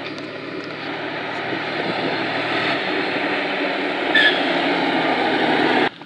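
A truck approaching along an asphalt road: engine and tyre noise growing steadily louder, with a brief high squeal about four seconds in. The sound stops abruptly near the end.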